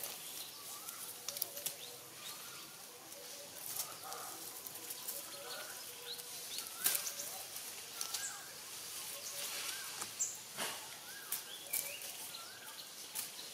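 Dry leaf litter crackling in scattered sharp clicks, with a steady run of short chirping calls that rise and fall in pitch, a second or less apart, over a faint hiss.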